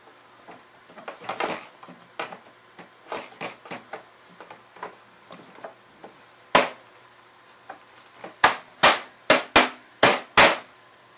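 Hard plastic parts of a backpack blower frame clicking and knocking as the back pad is handled and pressed onto the frame by hand, then a loud knock and a quick run of about six loud knocks as it is smacked into place.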